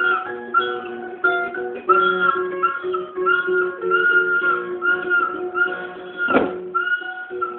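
Toy instruments playing: a small child blowing repeated high piping notes on a plastic toy flute over a plucked toy-guitar tune, with a short sharp sound near the end.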